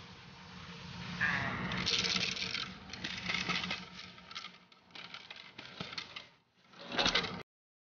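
Dense clattering and clicking of a dog trainer's slap stick, shaken and struck near a puppy tugging on a burlap tug, with scraping in between. The clatter is loudest just before the sound cuts off abruptly near the end.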